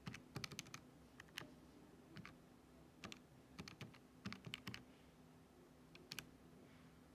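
Quiet clicks of buttons pressed on a Casio fx-991EX ClassWiz scientific calculator, coming in small irregular runs as a calculation is keyed in.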